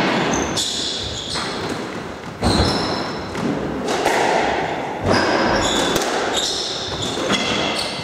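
Squash ball thuds and shoe squeaks on a wooden squash court: two dull impacts, about two and a half seconds apart, and several short high squeaks, against a steady hall background.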